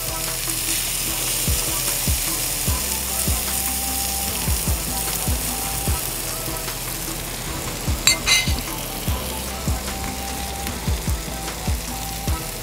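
Bacon, sausage and vegetables sizzling on a Blackstone steel flat-top griddle, with two metal spatulas tapping and scraping on the steel as they toss the onions and peppers. There is a brief metallic clatter about eight seconds in.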